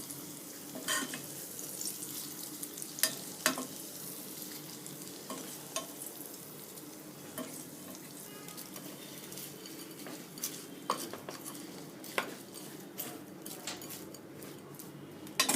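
Hot mustard-oil tempering sizzling as it is stirred into tamarind pickle paste, with a spoon clicking against the bowl now and then.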